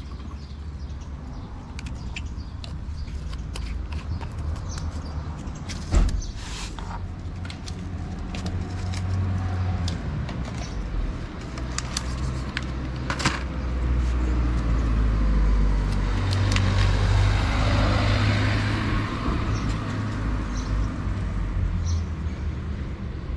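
Street traffic: a car passing, its sound swelling and fading, loudest about two-thirds of the way through, over a steady low rumble. A sharp knock about six seconds in, and scattered light clicks.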